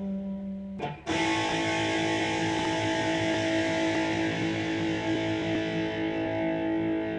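Distorted electric guitar, a Supreme played through a Line 6 amp's metal channel: a held chord breaks off just before a second in, and a fresh chord is struck and left to ring with long, steady sustain and feedback.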